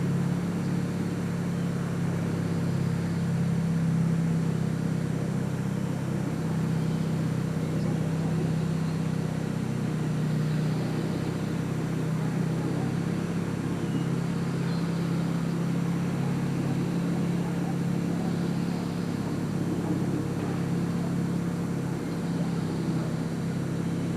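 A steady low mechanical drone, unchanging throughout.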